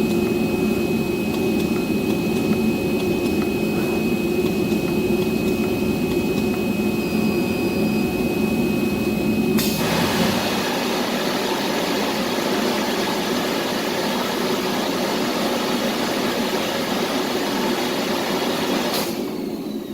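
CNC circular-knife cloth cutting machine running with a steady mechanical hum. About halfway through the sound switches abruptly to a brighter hiss with less low hum, which cuts off suddenly near the end.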